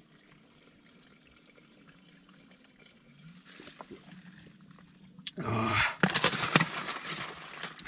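Ice chunks rattling and a little water sloshing inside a water bottle as it is shaken, starting about five seconds in; the water has mostly frozen overnight.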